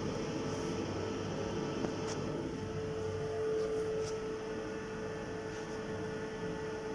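Steady mechanical hum with a constant mid-pitched tone that grows a little stronger partway through, and a couple of faint clicks.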